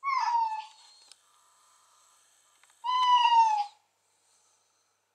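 Mobile phone ringtone playing a recorded cat meow through the phone's small speaker, twice: two calls just under a second long, each sliding slightly down in pitch, the second about three seconds after the first.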